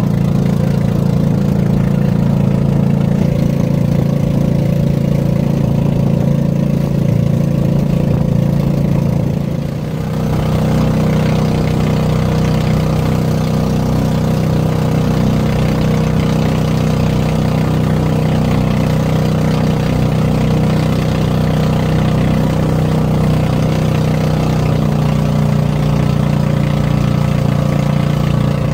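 Outrigger fishing boat's engine running steadily under way, a low even drone with water and wind hiss over it; it dips briefly about ten seconds in, then carries on.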